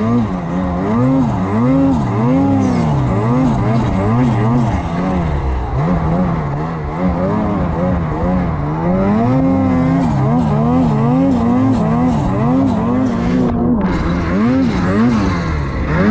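Snowmobile engine revving up and down over and over, its pitch rising and falling every second or so as the sled is worked through deep, heavy snow.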